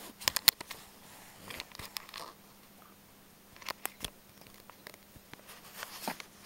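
Scattered sharp clicks and soft rustles from a handheld camera being moved about and handled, a cluster in the first half second and a few more later, with a quiet stretch in the middle.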